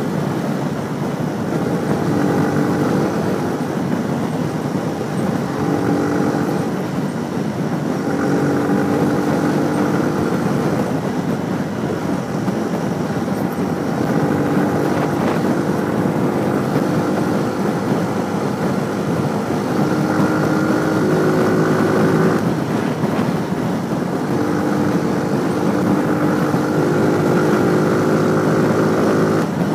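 Motorcycle engine running at road speed under steady wind rush, heard from the rider's helmet camera. The engine note settles at a new pitch every few seconds as the throttle and speed change.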